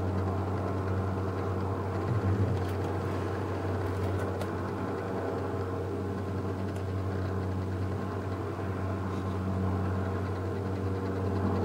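Light helicopter in flight: a steady drone of engine and rotor with a strong low hum.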